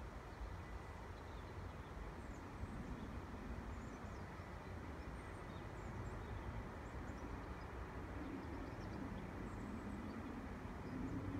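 Quiet outdoor ambience: a steady low rumble with scattered faint bird chirps. A low hum swells slightly near the end.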